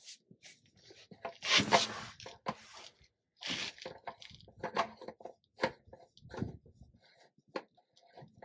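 Handling noise as a heavy spin-on oil filter on a semi-truck is worked by hand against its threaded mount without catching the thread: scattered clicks and scrapes, with two longer scraping rushes about one and a half and three and a half seconds in.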